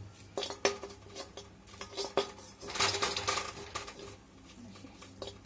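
Spatula scraping and knocking against a metal kadai as browned khoa is stirred in it: a run of irregular clicks and scrapes, busiest around the middle.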